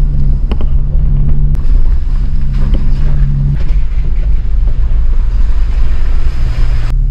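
Jeep driving slowly along a dirt mountain trail: a steady engine hum over low road rumble. The hum drops in pitch a little past halfway, and a few knocks and rattles come from the bumpy ground.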